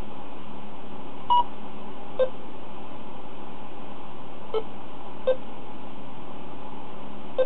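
Keypad confirmation beeps from a handheld amateur radio transceiver as its buttons are pressed one by one: about five short beeps at uneven spacing, the first higher-pitched than the rest, over a steady hiss. The beeps show the repaired rubber membrane buttons now register presses.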